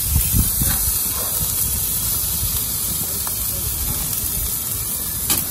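Steady hiss of a propane grill searing a tomahawk steak over open burner flames, with an uneven low rumble underneath. A brief click near the end.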